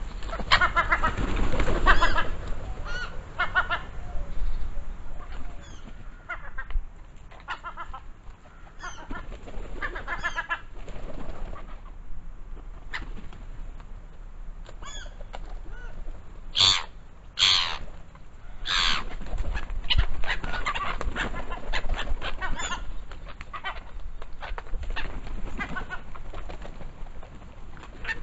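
Black-headed gulls jostling at a food dish: repeated short, harsh calls mixed with wing flapping, with three loud calls in quick succession a little past halfway.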